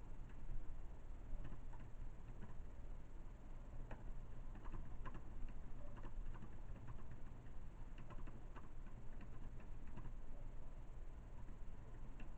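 Computer keyboard typing: soft, irregular clicks in short runs, busiest from about four to ten seconds in.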